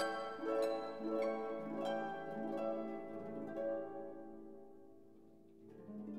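Background music of plucked harp-like strings: a melody of notes starting about twice a second, then a held note dying away, with a new note struck just before the end.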